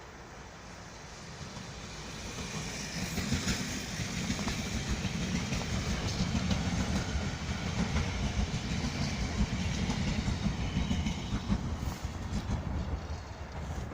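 Train passing through a station, its wheels clattering rhythmically over the rail joints; it builds over the first couple of seconds and fades near the end.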